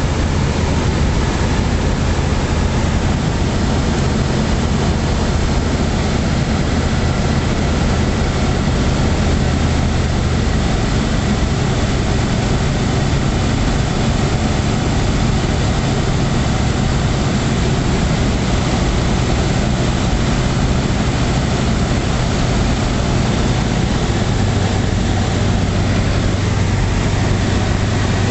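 Light aircraft's engine and propeller droning steadily from inside the cockpit, with rushing air noise over it. The low drone shifts in pitch about ten seconds in and again near the end.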